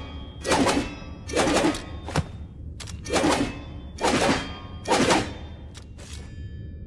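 Katana sound effects: five short sword strokes about a second apart, several followed by a faint metallic ring, with a few light clicks between them and near the end.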